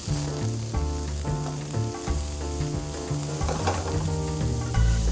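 Diced red onion and garlic sizzling in oil in a nonstick frying pan as they are stirred, over background music with a bass line.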